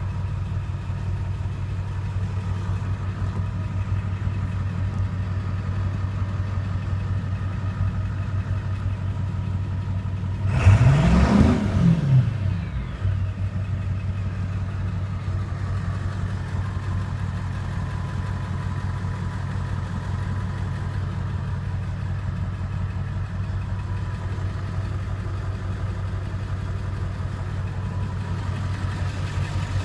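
A Ford 7.3 Powerstroke turbo diesel V8 idling steadily, heard from inside the truck's cab. About ten seconds in the throttle is blipped once: the engine revs up briefly and falls back to idle.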